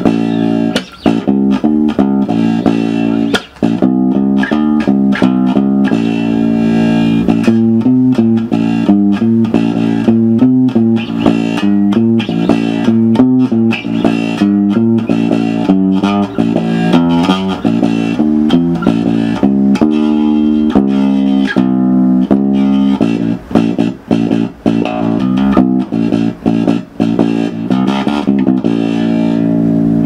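Electric bass guitar plucked with the fingers through a Marfill 20B bass combo amp, playing a steady run of notes with a few short breaks in the later part. The tone is clean and smooth but lacks fullness.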